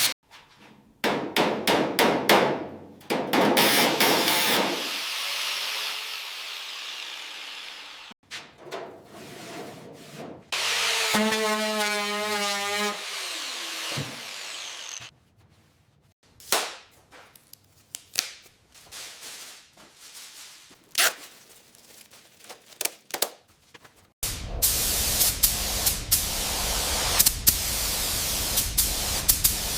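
A string of short workshop tool sounds: rubbing and scraping, a brief wavering whine from a small motor, and scattered taps and clicks. Near the end a steady spray-gun hiss begins.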